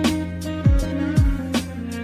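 The instrumental of a rap beat, with no vocals. Deep bass kicks slide down in pitch twice, sharp drum hits land between them, and a melody holds steady over them.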